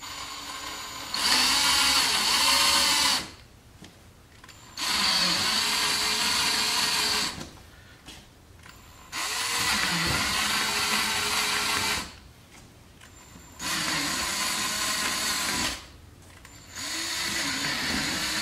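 Cordless drill with a quarter-inch bit drilling through the underside of a car's rear bumper cover, run in five short bursts of two to three seconds each with brief pauses between, the motor's pitch rising and falling within each burst.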